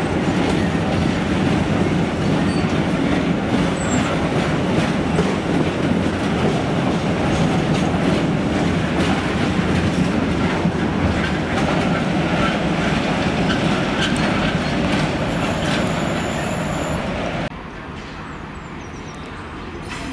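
A freight train of PCA cement tank wagons rolling past close by, its wheels clattering steadily over the track, with a high squeal for about two seconds near the end. Then the sound cuts abruptly to a much quieter, steady station rumble.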